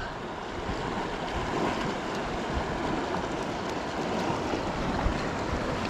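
Steady rushing of a fast river running high.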